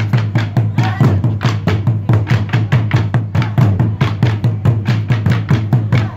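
Burundian traditional drum ensemble: several tall wooden drums beaten together in a fast, steady, driving rhythm of about five strokes a second, with deep booming hits.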